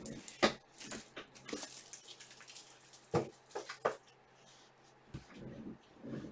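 Trading cards being handled at a table: quick rustles, slides and light taps of card stock as cards are flipped through and set down, busiest in the first few seconds and softer after, over a faint steady low hum.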